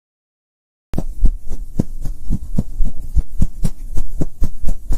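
A rapid run of low thumps with sharp clicks on top, about four a second and uneven in strength, starting suddenly about a second in; a sound effect under an animated logo intro.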